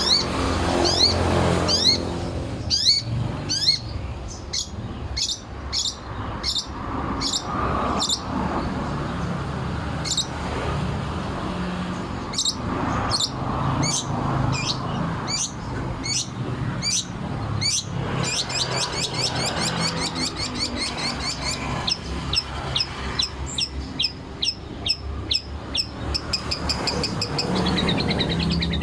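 Long-tailed shrike (cendet) calling in a long string of sharp, high, sweeping notes, the rapid 'tembakan' run prized by Indonesian songbird keepers. The notes come about two a second at first and quicken to a fast run about two-thirds of the way through, over a steady low background rumble.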